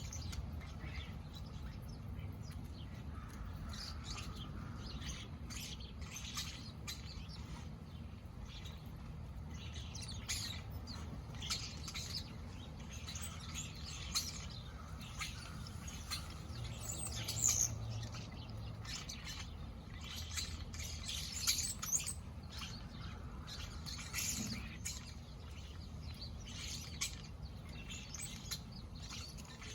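Blackbirds chirping, many short calls overlapping and scattered throughout, over a steady low background rumble.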